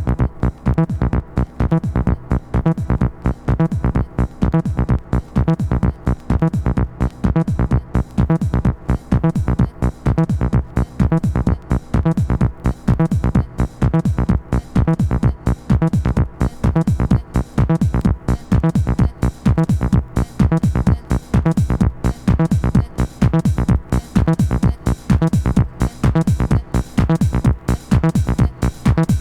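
Instrumental stretch of a deep house record played from vinyl: electronic dance music with a steady, evenly repeating beat and heavy bass, no vocals.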